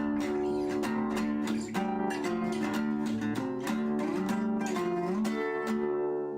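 Background music: an acoustic guitar playing a melody of plucked notes, ending on a held note that fades.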